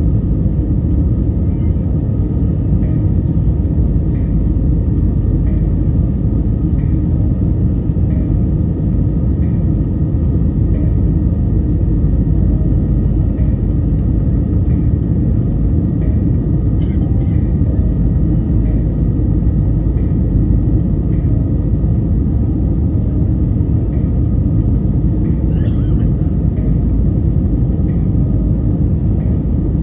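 Steady low roar inside the cabin of an Airbus A320neo climbing out after takeoff, from its CFM LEAP-1A engines and the airflow over the airframe. A faint tick repeats about once a second.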